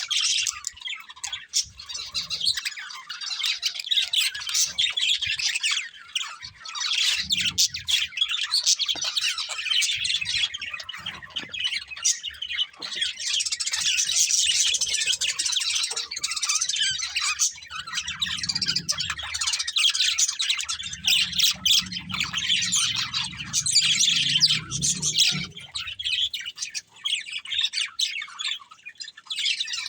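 A pair of budgerigars chirping and chattering without pause, a dense stream of quick high twitters mixed with squawks.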